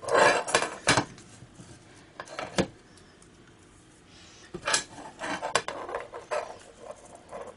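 Thin metal casing and flat lithium cells of a laptop battery pack being handled and pried apart, with light metallic clatters, taps and crinkles. They come in a bunch in the first second, then a single tap, then another bunch from about halfway through.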